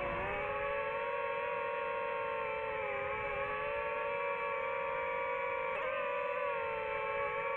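DJI FPV drone's propellers whining steadily while it hovers. The pitch dips at the start and wavers briefly again near the end as the motors change speed.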